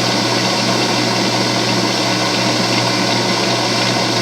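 Kenwood stand mixer's motor running steadily at speed 5: a constant low hum with an even hiss over it.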